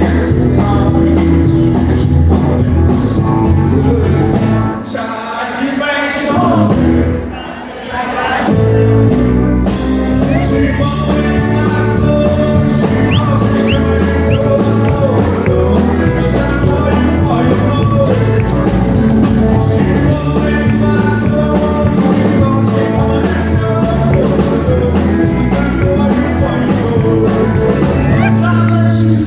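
Live country band playing, with a man singing over acoustic guitar and band accompaniment. About five seconds in, the band thins out and goes quieter for a few seconds, then comes back in full.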